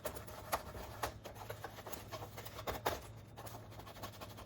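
Paper towel rubbing and scrubbing sticky grime off a plastic Roomba part, with irregular scratchy strokes and small clicks of the part being handled, over a low steady hum.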